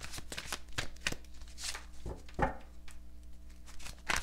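Tarot cards being handled: quick rustling, flicking and light slapping of the cards as they are shuffled and laid out, with a sharper snap near the end.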